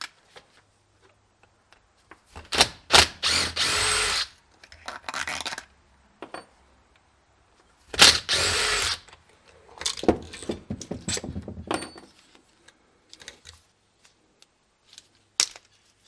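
Power drill spinning in two runs of about a second and a half each, backing out the screws of a diaphragm pump's housing, with clicks and rattles of parts being handled between the runs.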